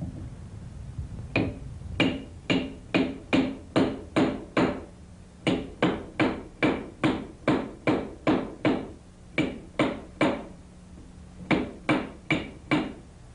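Hammer striking a work-hardened copper chisel held against a corner of a granite block. About two dozen sharp blows come roughly three a second in runs broken by short pauses, each with a brief metallic ring.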